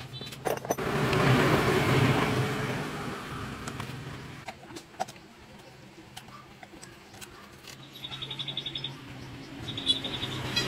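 Hand-tool work on a small motorcycle's front fork and fender: scattered metal taps and clicks, with quick runs of even ratchet-like ticking near the end as a bolt is tightened. A loud swell of rushing noise fills the first few seconds over a steady low hum.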